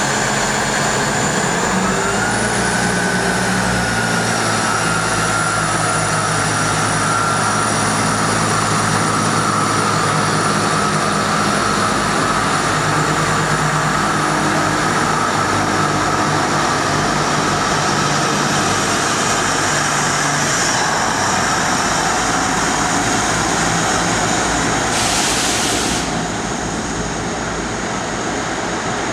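Class 159 diesel multiple unit pulling out of the station: the underfloor diesel engines run under power with a high whine over the engine note, and the carriages roll past on the rails. The engine note fades as the train goes, a short burst of hiss comes near the end, and after it a quieter steady rumble remains.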